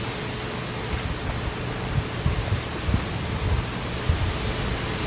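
Steady hiss of outdoor background noise, with irregular low rumbles from about two seconds in.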